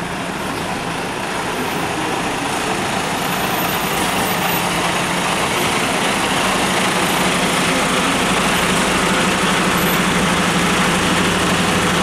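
Diesel engine of an Iveco 510 truck tractor running as the truck creeps slowly up and pulls in close, a steady low engine hum that grows gradually louder as it nears.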